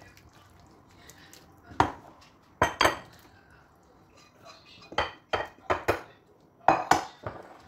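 Ceramic bowls, a baking dish and a china plate knocking and clinking on a stone countertop, with a spatula tapping against a bowl: about ten sharp knocks in irregular bursts, the loudest about three and seven seconds in.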